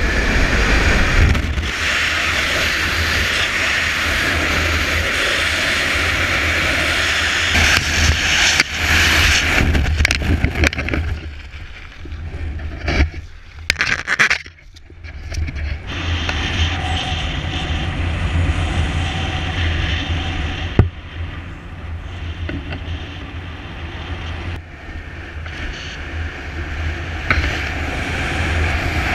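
Wind rushing and buffeting over a helmet-mounted camera's microphone during a parachute jump. It is loud and dense for the first ten seconds or so, breaks up a little after ten seconds as the ram-air canopy opens, then settles into lower, steadier wind under the open canopy, with a single sharp click a little after twenty seconds.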